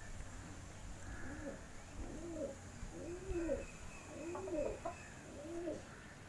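Domestic pigeon cooing: a run of short, arched coo notes, about one a second, starting about a second in.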